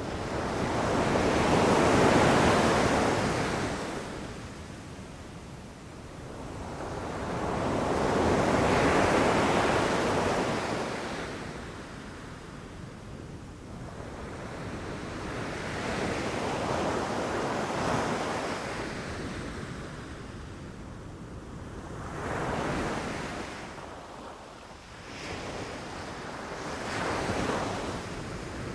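Ocean surf: waves breaking and washing up the beach, swelling and falling away about five times, the first two the loudest and the later ones smaller and closer together.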